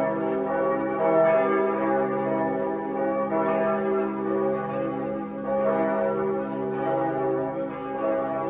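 Several church bells pealing together, their overlapping strokes ringing on without a break over a steady low hum.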